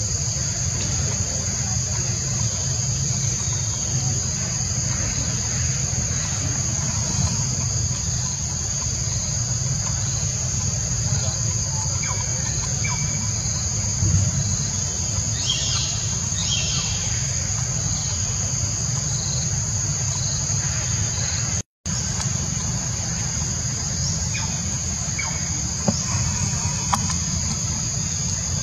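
Steady, continuous chorus of forest insects, a high even buzz, over a low rumble, with a few short bird chirps about halfway through. The sound drops out for an instant a little after two-thirds of the way in.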